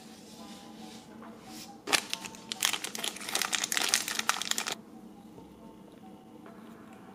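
Thin clear plastic packaging bag crinkling as fingers handle it and open it to take out a small toy bucket and apples. The crinkling starts about two seconds in and stops sharply nearly three seconds later.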